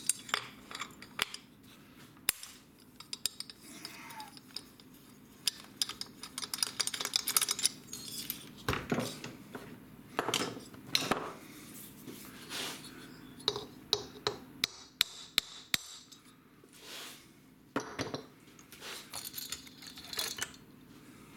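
Irregular metallic clinks, clicks and short scrapes of chainsaw parts and hand tools being handled while a Stihl MS462 is dismantled and its cylinder is worked off the piston.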